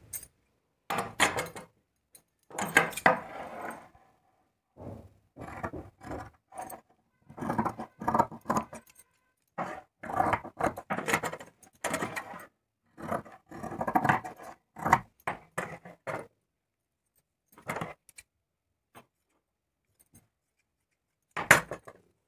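Tailor's shears cutting through folded lining cloth: a run of irregular cutting strokes, some close together and some a second or so apart, that thins out to a few isolated snips and clicks in the last seconds.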